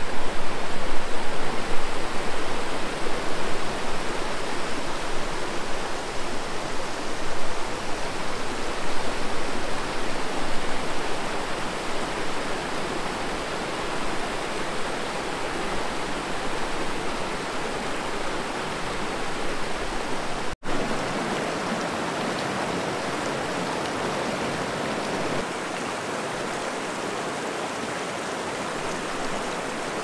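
Steady rush of flowing river water. A split-second dropout about two-thirds of the way through, after which the rush is a little softer.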